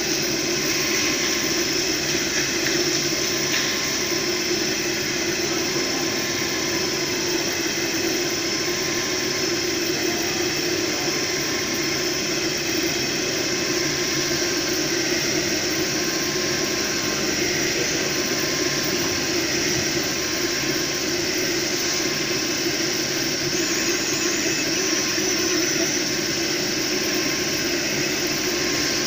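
DeltaWASP 20 40 Turbo2 delta 3D printer printing at high speed. Its stepper motors give a steady, busy whir as the print head darts rapidly back and forth laying down infill.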